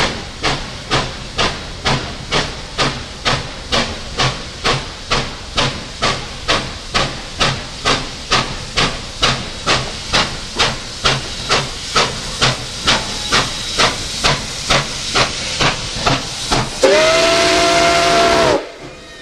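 Nickel Plate Road 2-8-4 Berkshire steam locomotive No. 765 working hard on the approach, its exhaust chuffing in an even beat of a little over two a second. Near the end its steam whistle blows one loud blast of several tones over a rush of steam, under two seconds long, which cuts off abruptly.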